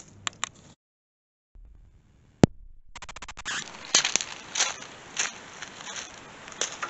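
A sharp click, then footsteps crunching on gravel at a steady walking pace, about one step every 0.6 seconds.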